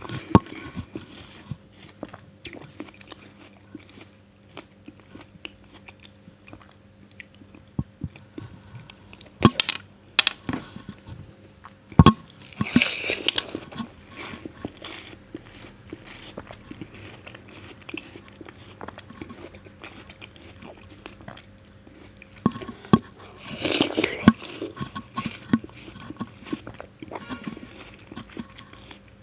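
Close-miked chewing of watermelon: many small wet, crunchy clicks of the juicy flesh being chewed. Two louder, longer crunchy bites come partway through.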